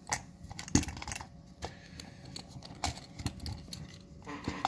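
Small plastic and metal parts clicking and knocking as a plastic projector housing is handled and its motor and LED board assembly is worked out of it. The clicks are irregular, with the loudest about three-quarters of a second in.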